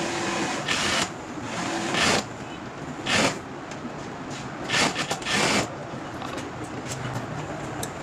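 Factory machine running in short bursts, about five times, over a steady workshop hum.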